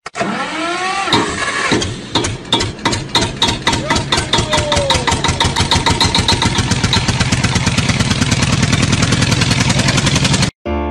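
Engine starting and then revving up, its beat speeding up steadily, with a falling whine near the start. It cuts off suddenly just before the end.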